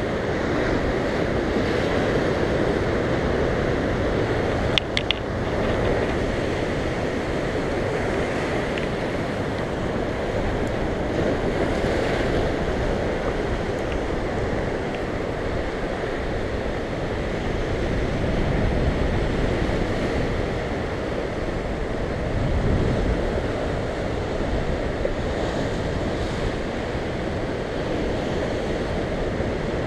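Ocean surf breaking and washing over rocks, a steady rushing roar with wind buffeting the microphone. A couple of sharp clicks about five seconds in.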